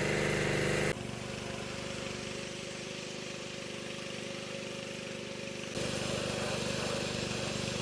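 An engine running steadily, with abrupt changes in level about a second in and near six seconds where the footage is cut.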